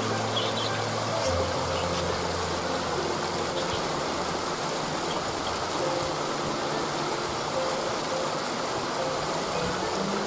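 Steady rush of a waterfall, with soft, sustained background music notes that change pitch slowly underneath.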